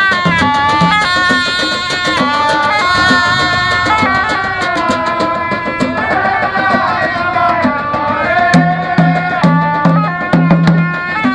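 Live Gulf Arab folk music: a reed pipe plays a melody of long held notes that slide between pitches, over a steady beat of large barrel drums and hand drums at about two strikes a second, the drum beat coming forward in the second half.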